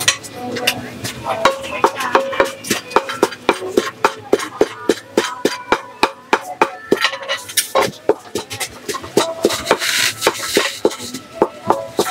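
Wooden pestle pounding a salad in a large clay mortar, steady knocks at about three a second.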